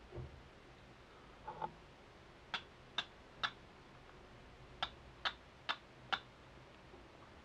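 Steel fire striker struck against a flint held with charcloth: seven sharp metallic clicks in two runs, three and then four, about two a second, striking sparks onto the charcloth. A couple of faint soft knocks come before them.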